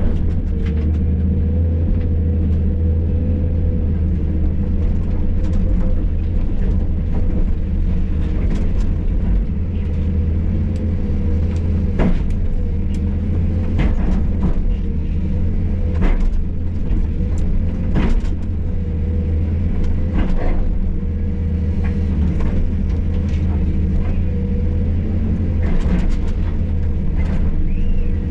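Hydraulic excavator's diesel engine running steadily under load, with a steady whine over the rumble. Sharp knocks and cracks come again and again as the bucket breaks up a concrete slab.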